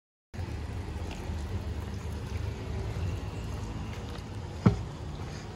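Outdoor street ambience: a steady low rumble that cuts in after a split second of dead silence, with one sharp click about four and a half seconds in.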